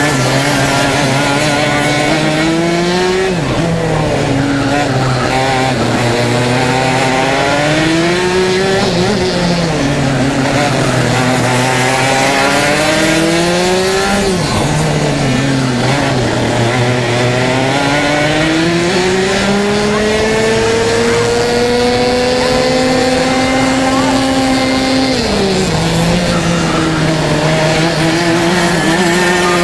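Racing kart engine revving up and down as it laps the circuit: the pitch climbs steadily for several seconds, then drops sharply under braking, about four times, with other karts' engines running beneath it.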